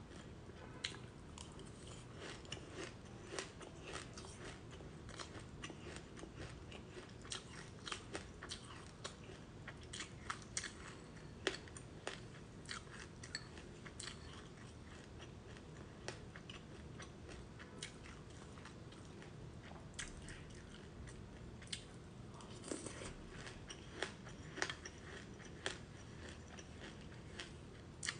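Close-up crunchy chewing of frozen black sesame seeds with passionfruit pulp: a dense, irregular run of small crisp crackles and crunches.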